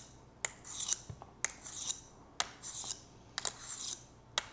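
Ceramic honing disc of a rolling knife sharpener rolled back and forth along a steel knife edge to polish it: a high scraping hiss, about one stroke a second, with a sharp click as each stroke starts and stops.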